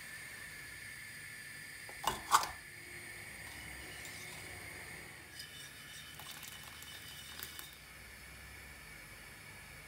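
Kitchen utensils against a stainless-steel soup pot: two sharp knocks about two seconds in, then a few faint light clinks of a spoon, over a steady faint hiss.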